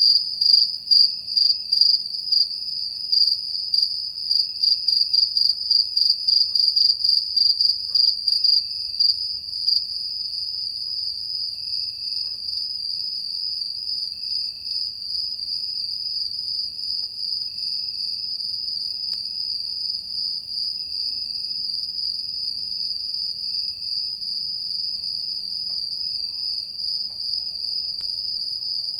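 Crickets chirping: a high-pitched, rapidly pulsing chirp for about the first ten seconds, which then merges into a steady unbroken trill, with a fainter, lower cricket chirping on and off.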